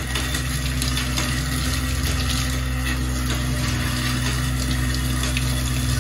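Franke TE 75 kitchen-sink waste disposal unit running with a steady motor hum, while tap water pours into the sink and down through the disposer.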